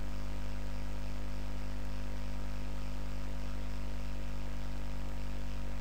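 Steady electrical mains hum, a stack of evenly spaced low tones, over an even hiss.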